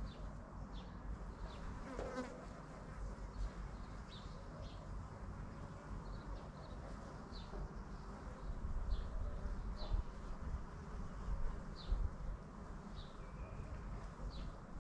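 Bees buzzing steadily around a flowering bush, one flying close past about two seconds in, its buzz rising in pitch. Short high chirps recur in the background, and low wind rumble on the microphone grows louder in the second half.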